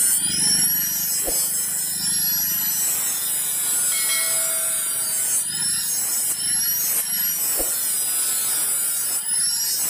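Maktec angle grinder with a flap disc grinding the steel of a machete blade: a steady, loud grinding hiss over a high motor whine that dips and rises in pitch several times.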